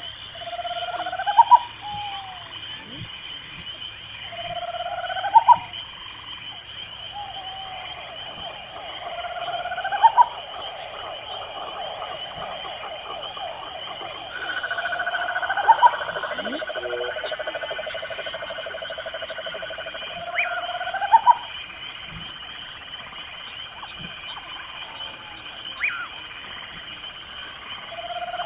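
Night chorus of crickets chirring steadily and high, with a short rising frog call repeated about every four seconds and a longer lower trill in the middle.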